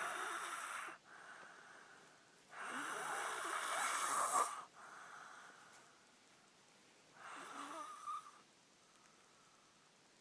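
Snoring in slow, rasping breaths. The first snore is already sounding at the start, a longer and louder one comes about two and a half seconds in, and a weaker one follows near the end, with softer breaths between them.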